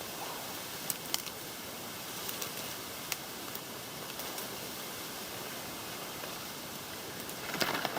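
Steady outdoor hiss with a few faint clicks, then footsteps rustling through bush undergrowth near the end.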